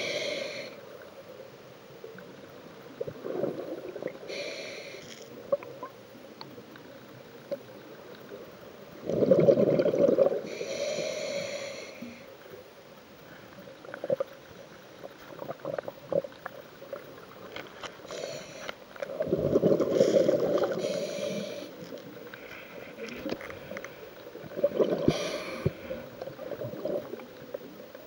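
Scuba diver breathing through a regulator, heard through an underwater camera housing: hissing inhalations and three loud bubbling exhalations spread several seconds apart, with scattered small clicks.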